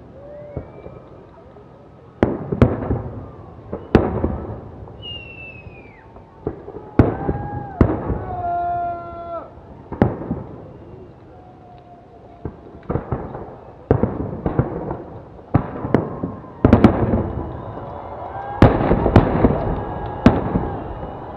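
Fireworks salute: a run of sharp bangs from bursting shells, some single and some in quick clusters. The bangs come thickest about 17 seconds in and again around 19–20 seconds, and a falling whistle is heard about 5 seconds in.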